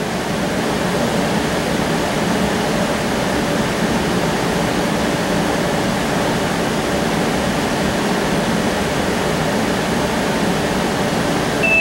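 Steady interior noise of a CAF Urbos streetcar running on its line, a hum and rumble of motors and wheels on rail with a faint low drone. A high electronic tone starts right at the end.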